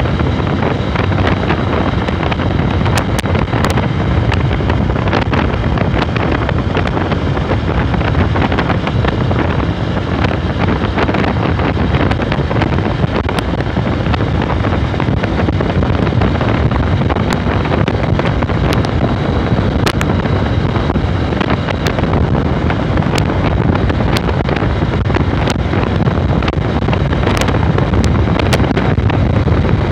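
Steady wind buffeting the microphone of a moving Honda NXR 150 motorcycle, with its single-cylinder engine running at cruising speed under the wind, and a few light clicks.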